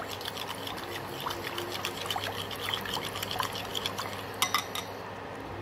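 Pomegranate juice sloshing and gurgling as a spoon stirs it in a pot, with many small liquid pops and two sharp clicks about four and a half seconds in.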